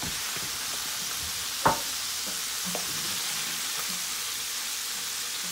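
Breaded chicken pieces deep-frying in oil in a pan, a steady sizzle. A single sharp knock comes a little under two seconds in, with a fainter one about a second later.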